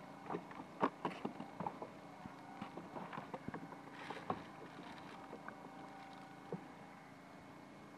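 Handline fishing from a small boat at sea: scattered light knocks and clicks of the line and boat, loudest a little under a second in, over a faint steady hum.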